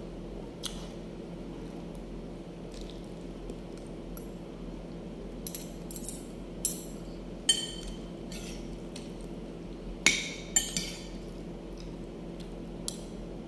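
Metal fork and spoon clinking and scraping against a plate of pasta while eating: scattered light clinks, the sharpest a little past halfway and again about three-quarters through, over a steady low hum.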